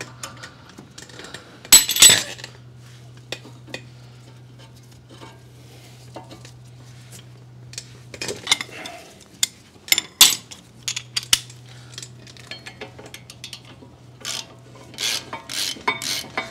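Scattered metallic clinks and clanks of hand tools and steel caliper bracket bolts being handled during front brake work, the sharpest about two seconds in, around eight to ten seconds, and a quick run of them near the end. A steady low hum runs underneath, dropping out for a few seconds around eight seconds in.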